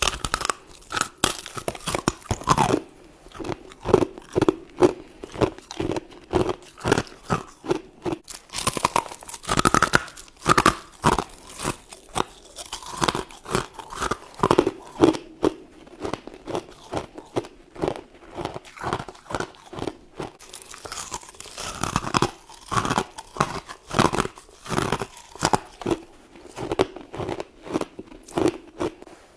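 A person chewing mouthfuls of white frost close to the microphone: crisp crunches in quick succession, about two a second, with a couple of short pauses.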